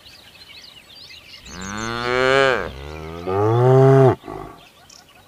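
A cow mooing twice: two long moos of about a second each, the first falling in pitch at its end, the second louder and cutting off suddenly. Birds chirp faintly behind.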